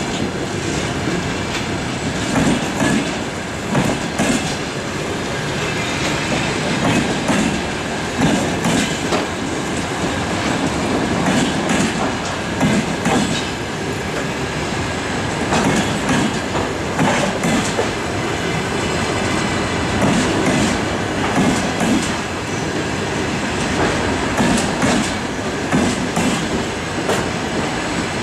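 Passenger coaches of a departing express train rolling past close by. Their wheels clatter over the rail joints in a recurring clickety-clack.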